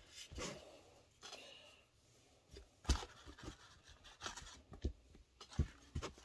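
Scattered light taps, rubs and scrapes of fingers pressing pie crust dough into the cups of a muffin pan, with a sharper knock about three seconds in.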